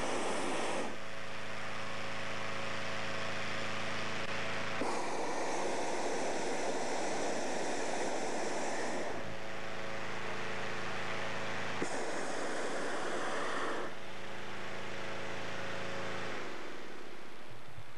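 Hot air balloon inflation: an engine-driven inflator fan hums steadily, broken four times by a loud rushing roar from the balloon's propane burner, the longest about four seconds, each starting and stopping abruptly.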